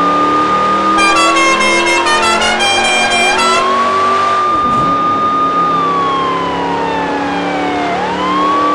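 A siren-like wailing tone that holds high, slides slowly down and sweeps quickly back up, twice, over several steady lower tones, with a brief run of quick high notes in the first half.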